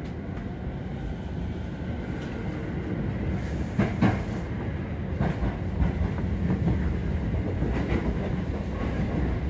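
Keio Line electric commuter train pulling away from a station, heard from inside the car: a steady rumble of wheels on rail that grows slowly louder as it picks up speed, with a few sharp clacks over rail joints about four seconds in.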